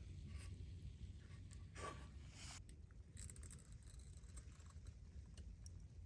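Near silence: a low steady outdoor rumble with a few faint ticks and one soft brief sound about two seconds in.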